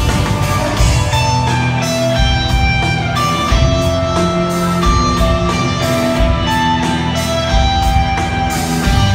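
A rock band playing live in an instrumental passage: long held electric guitar notes carry a melody over bass and drums.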